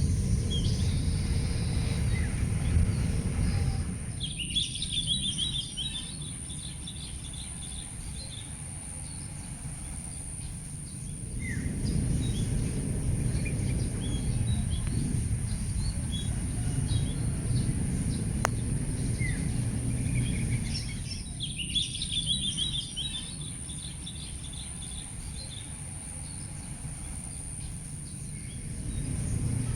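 Outdoor ambience: small birds chirping in short spells of high twittering, over a low rumble that swells and fades, with a steady high-pitched whine throughout.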